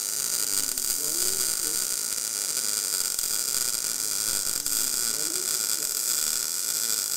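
MIG welding arc burning steadily, a continuous hissing buzz as the wire feeds into the weld.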